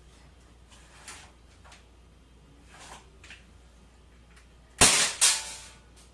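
KWC PT 24/7 CO2 BB pistol firing steel BBs: a few faint clicks, then two sharp cracks about half a second apart near the end.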